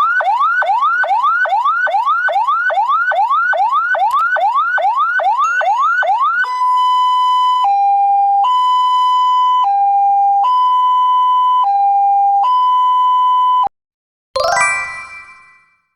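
Electronic ambulance siren on a fast rising yelp, about two and a half whoops a second. About six seconds in it switches to a two-tone hi-lo, alternating roughly once a second, then cuts off suddenly. A brief, fading burst of another sound follows near the end.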